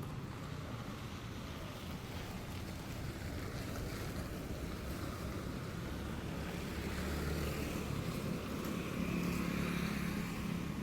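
Outdoor road noise: a steady rumble of passing traffic and engines, with wind buffeting the microphone, growing a little louder toward the end.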